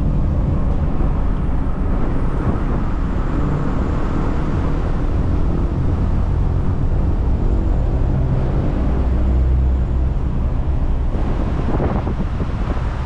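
Steady low rumble of a car driving, engine and road noise with no sharp events.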